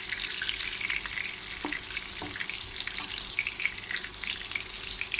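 Beef frankfurters frying in hot oil in a pan: a steady sizzle with dense, irregular crackling pops.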